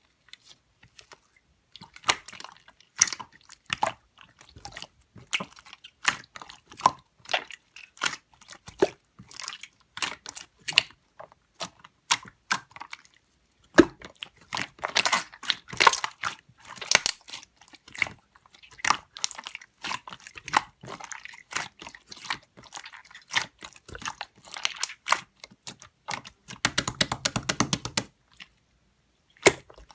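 Close, dry handling noises: a string of sharp clicks, taps and crinkles from small objects being handled, with a fast rattling run of clicks lasting about a second and a half near the end.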